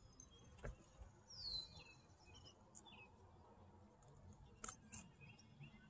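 Faint bird chirps in the open air, one a quick downward-sliding call about a second and a half in, with a few sharp clicks, the loudest about five seconds in.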